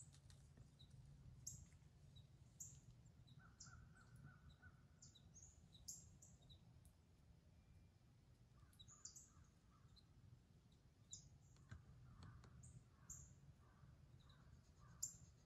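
Faint woodland bird calls over a quiet background: many short, sharp high chips throughout, and runs of lower repeated calls about four seconds in and again from about nine seconds on.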